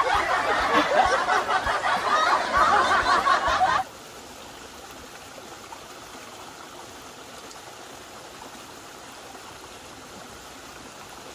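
Loud background music that cuts off abruptly about four seconds in, leaving the steady rush of flowing river water.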